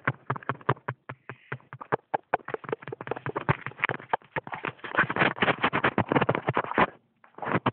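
Dense, irregular crackling and crunching of dry leaf litter and brush underfoot, many crackles a second. It stops abruptly near the end.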